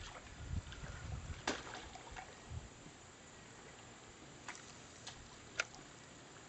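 Small boat on the water at night: low rumbling bumps and faint sloshing of water for the first two and a half seconds, then a faint steady hiss with a few sharp clicks, the loudest near the end.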